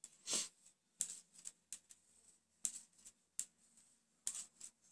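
Metal knitting needles clicking and yarn rubbing as stitches are cast on by hand: faint, irregular light clicks and scrapes, about eight of them.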